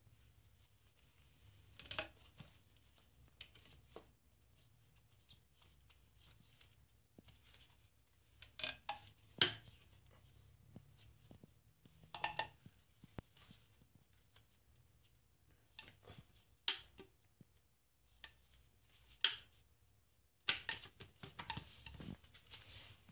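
Intermittent handling noises: rubber heater hoses being worked onto a metal pipe by gloved hands, with a few sharp clicks and taps and a longer rustle near the end, over a faint low hum.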